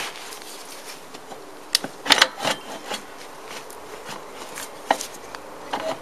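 A few sharp clicks and light knocks, the loudest about two seconds in, from hands handling the scooter's rear wheel and spacers while fitting it. Behind them, the faint steady buzz of a flying insect.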